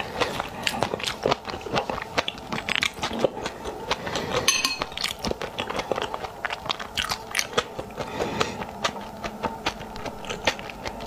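Close-miked eating sounds: chewing a mouthful of raw seafood and fish roe, with dense crisp clicks and crunches several times a second. One sharper, ringing click about halfway through.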